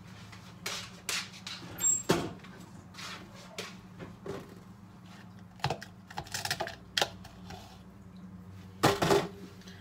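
Scattered light clicks and knocks of kitchen items being handled and set down around a plastic blender cup, with the loudest about two seconds in and a short rattle near the end. A steady low hum runs underneath.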